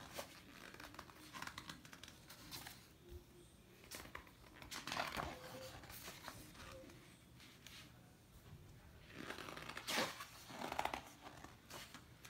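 Pages of a large illustrated book being turned by hand: several rustling page turns with the paper sliding and flapping, the loudest about five and ten seconds in.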